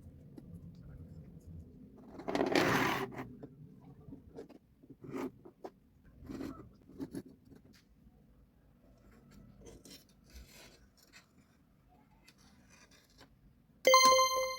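Scattered scraping and tapping sounds from handling the workpiece, with one harsh scrape about two and a half seconds in. Near the end a loud, steady pitched ringing tone starts abruptly.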